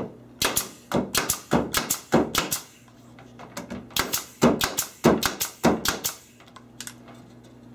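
Husky 18-gauge pneumatic brad nailer firing brads into a block of wood: a quick run of sharp shots, a pause of about a second, then a second quick run.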